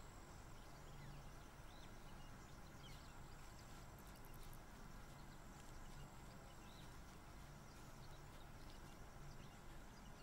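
Near silence: faint outdoor ambience with a low hum and a few faint, scattered high chirps.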